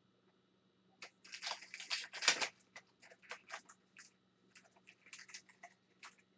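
2021-22 Upper Deck Series 1 hockey cards and their pack wrapper being handled. There is a crinkling, rustling run starting about a second in, loudest just after two seconds, then a string of short flicks and rustles.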